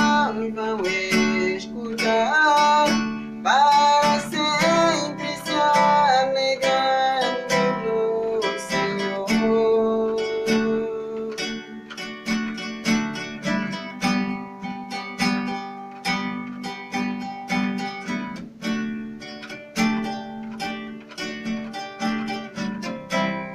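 Background music led by plucked and strummed acoustic guitar, with a gliding melody line over it for roughly the first ten seconds.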